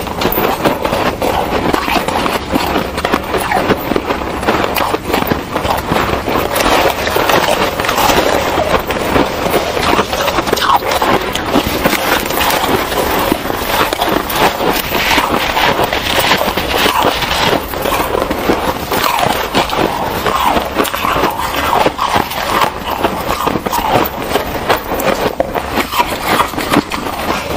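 Shaved ice being bitten and chewed close to the microphone: a dense, continuous crunching made of many quick crackles. Two eaters' crunching is layered together.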